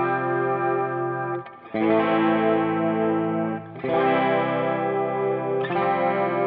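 Electric guitar played through a Kemper Profiler with a harmonizer-style micro pitch-shift chorus switched on: sustained chords ringing with a shimmering, wavering doubling. A new chord is struck three times, with a brief drop just before the second.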